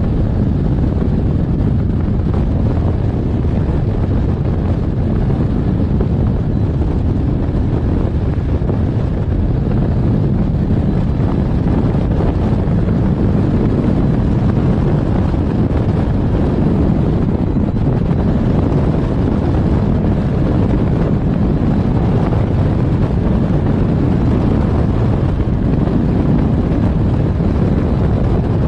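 Steady wind noise buffeting the microphone of a camera on a hang glider in flight, heaviest in the low end and unbroken throughout.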